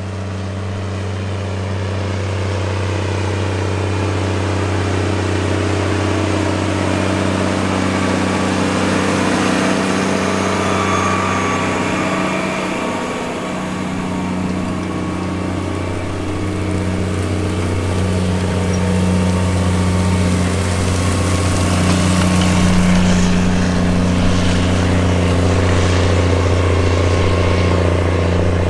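Big Bud 525/50 four-wheel-drive tractor's diesel engine running steadily under load as it pulls tillage and plowing implements across a field: a loud, even low drone.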